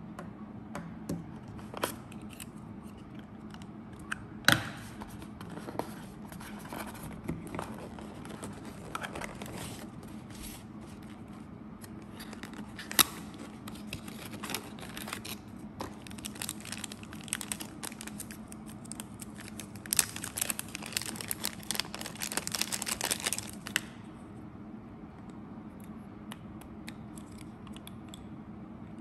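Cardboard and paper packaging rustling and crinkling as an action camera's box is unpacked, with sharp clicks and knocks of small plastic parts being handled. A dense stretch of crinkling comes about two-thirds of the way through, then it goes quieter near the end, over a steady low hum.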